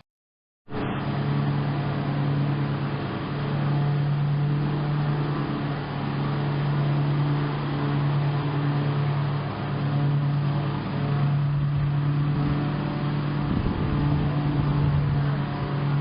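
An engine or motor running steadily, a loud low hum that holds its pitch, starting abruptly about a second in.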